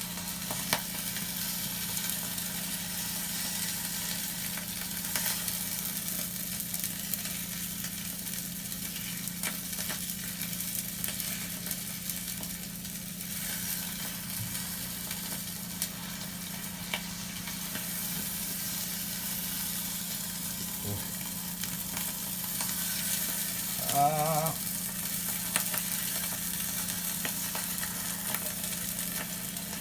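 Egg whites with chicken and fried rice sizzling steadily in a frying pan, over a steady low hum. A few light clicks come through, and a short wavering voice sound breaks in once, a little past three quarters of the way through.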